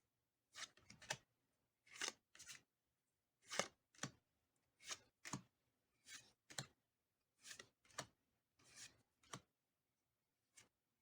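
Pokémon trading cards slid one after another off the pack's stack: short, faint, dry swishes, roughly one or two a second, with quiet in between.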